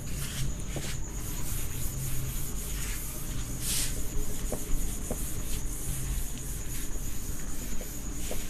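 Cloth duster wiping marker writing off a whiteboard: a series of rubbing, swishing strokes, the strongest about two thirds of the way through. A steady high-pitched whine sits under it throughout.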